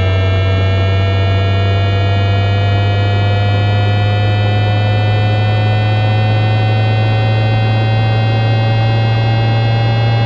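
A homemade propulsion engine running: a loud, steady low hum under a whine of several tones that climbs slowly and evenly in pitch.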